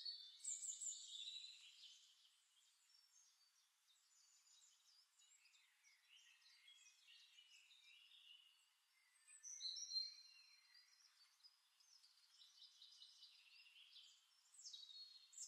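Near silence, with a few faint high chirps: around the start, once in the middle and again near the end.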